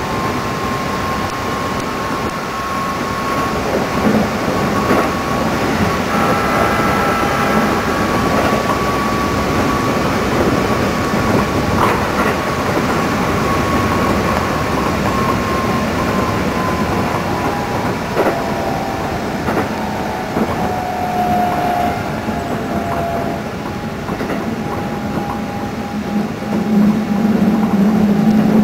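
Keikyu 600 series electric train running, heard from inside the car: steady running noise with scattered clicks from the rails and a thin whine that drops slightly in pitch about two-thirds through. A louder low rumble comes near the end.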